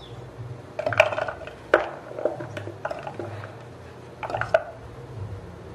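Peeled shallots and garlic cloves dropped by hand into the clear plastic bowl of a Mito Chiba food chopper, a series of small knocks several times over.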